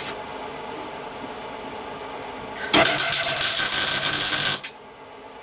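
MIG welder putting a tack weld on a steel bracket: about two seconds of loud arc crackle that starts with a few sputters and cuts off sharply.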